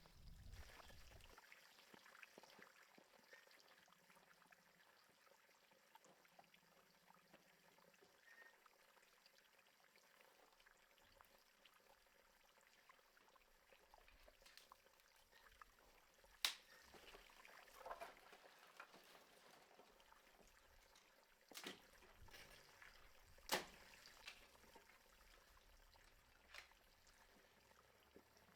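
Near silence: a faint steady hiss, broken by a few short sharp clicks or knocks, the loudest about halfway through and again about three-quarters of the way in.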